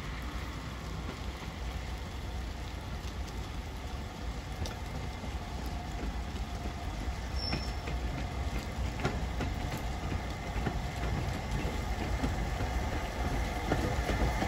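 LMS Black 5 steam locomotive No. 45305 approaching along the line, its exhaust and running noise a steady rumble that grows slowly louder as it nears.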